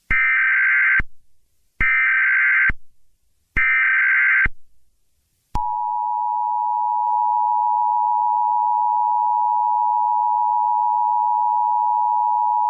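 Emergency Alert System broadcast opening: three SAME header data bursts, each about a second long with short gaps between them. Then the steady two-tone EAS attention signal (853 and 960 Hz) starts about five and a half seconds in and holds.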